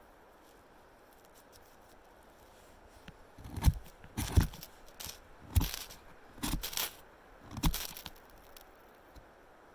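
Knife spine scraped down a ferrocerium rod about five times, short rasping strokes starting about three and a half seconds in, throwing sparks that catch the bark tinder bundle.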